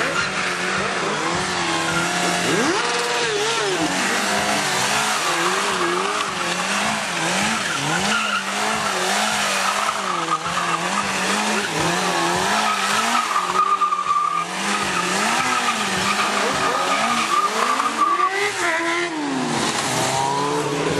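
Stunt motorcycle engines revving up and down over and over, their pitch rising and falling about once a second, with tyre squeal and skidding from the tarmac.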